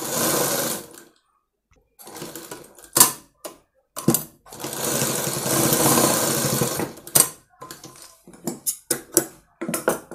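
Black Shiela domestic sewing machine stitching a blouse seam in two runs: one stops about a second in, and another lasts about three seconds in the middle. Scattered short clicks and knocks come between the runs and near the end.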